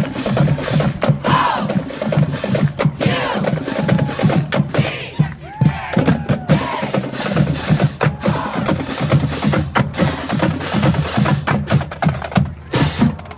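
Marching band drumline playing a marching cadence on snare drums and bass drums.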